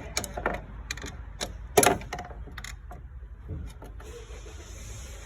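Metal clicks and knocks of a crowbar levering against a Fiat 500's shifter linkage, with one loud clunk about two seconds in as it is pushed over. The linkage is out of place, which keeps the car stuck in park. From about four seconds a steady high hiss comes in.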